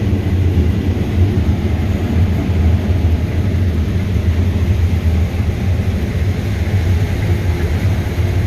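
Large farm tractor's engine running steadily under load, a constant low drone, heard from inside the tractor's cab.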